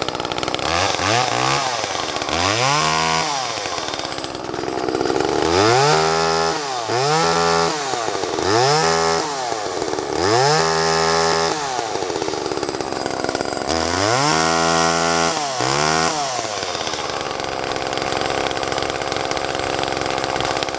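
Homelite XL Super 2 two-stroke chainsaw running at idle and being revved up to high speed and back down about nine times, some blips short and a couple held longer, then settling back to idle near the end.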